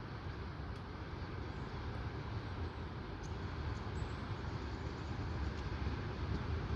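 Steady low rumble of a train on the line, slowly growing louder as it draws nearer, with a few faint clicks.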